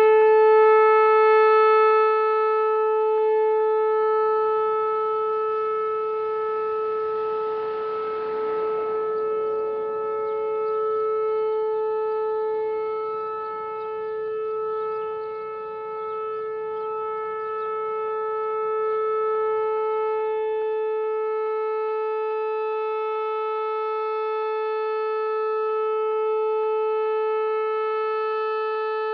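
Whelen WPS-4004 electronic outdoor warning siren sounding a steady tone at full pitch during a three-minute test: one held note that swells and fades slightly.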